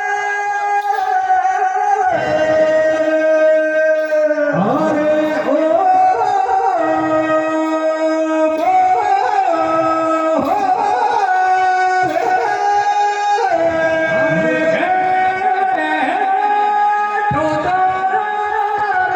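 Male voice singing a Tejaji devotional song (teja gayan) in long, drawn-out held notes that bend and slide between pitches.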